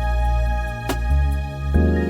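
Calm new-age background music: sustained held notes over a deep bass that changes chord twice, with a light percussive tap about a second in.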